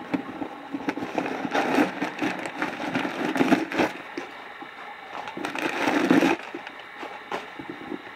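Rustling and crackling as gloved hands handle a Louis Vuitton Papillon handbag's coated canvas and open it, in two long stretches with a quieter gap between.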